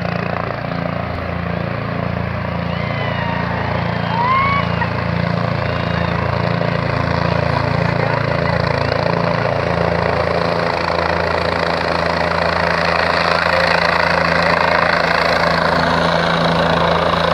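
Helicopter approaching to land, its rotor beating with a steady, regular pulse over the engine, growing gradually louder as it comes closer.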